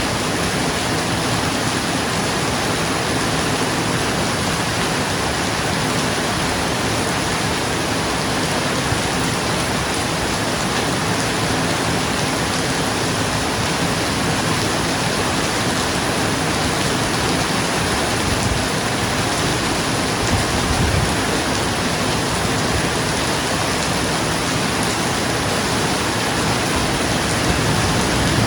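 Steady, dense rain falling on a roof, an even hiss with no let-up. About two-thirds of the way through there is a brief low rumble.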